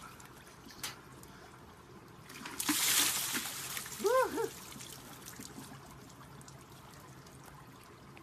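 Icy stream water trickling, with a splash of water poured about two and a half seconds in. Just after it comes a short cry of two quick rising-and-falling notes.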